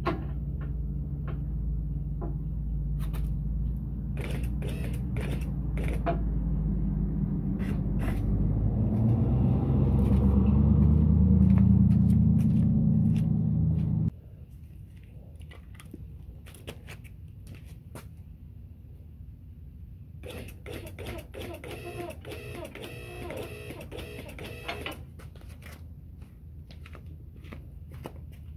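QuickJack 5000 electric-hydraulic pump unit running steadily as it lifts the car, growing louder as the load builds, then cutting off abruptly about halfway through. Afterwards only light scattered clicks and a short stretch of rattling.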